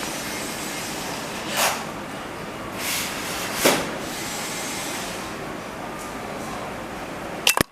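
Hands and a small tool working on a 3D printer's extruder knob and drive gear: three short scraping, rustling handling sounds over a steady hiss, then a sharp click near the end.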